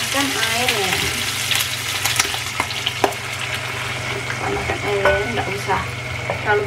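Duck tongues, ginger and shallots sizzling in oil in a frying pan while a wooden spatula stirs and scrapes them, with scattered clicks. About four seconds in, water is poured into the pan and the stirring goes on.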